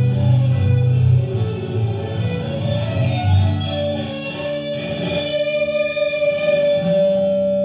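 Live band music with no singing: electric guitar over bass. About four seconds in, the bass drops away and a single sustained guitar note rings on, as in a song's closing bars.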